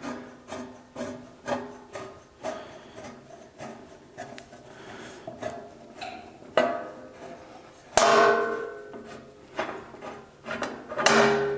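Metal hand tools clanking against each other and against steel, a run of sharp knocks with short metallic ringing, then three louder clanks about 6.5, 8 and 11 seconds in, as wrenches are handled to loosen a tight fastener.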